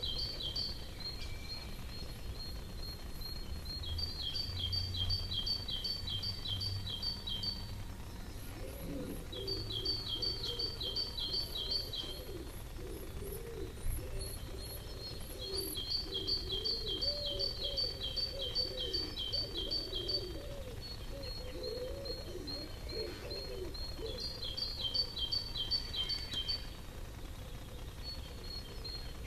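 Garden songbird singing: a clear two-pitched note repeated about two to three times a second, in runs of a few seconds with short pauses between. Through the middle stretch, a lower wavering sound runs underneath.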